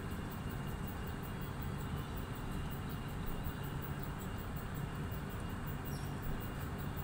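Steady low background rumble with a hiss over it, unchanging throughout. About six seconds in comes one faint, short, high-pitched chirp that falls in pitch.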